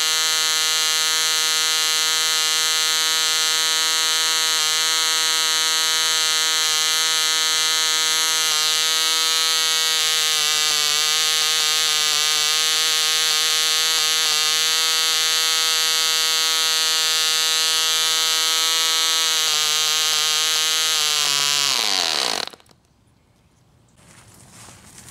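Russian MK-17 model diesel (compression-ignition) engine running a propeller at a steady high speed, a loud, even buzz. About 21 seconds in, the run is ended: the pitch drops quickly and the engine stops within a second.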